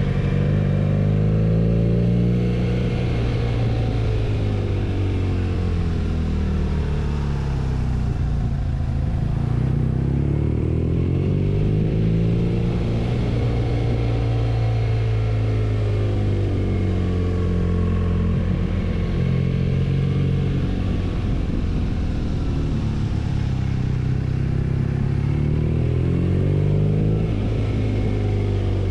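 BMW R nineT's 1170 cc air/oil-cooled boxer twin running under way, its pitch rising and falling over and over as the bike accelerates and eases off along a winding road.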